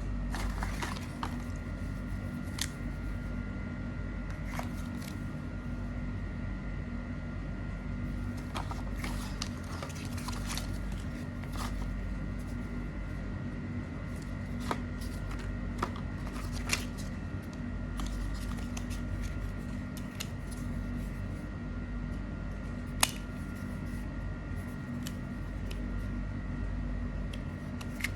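Scattered light clicks and taps from a phone and its packaging being handled, over a steady hum, with one sharper click near the end.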